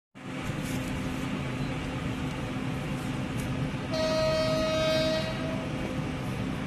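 A train horn sounds once, one steady note held for about a second and a half, about four seconds in, over a steady rumbling noise.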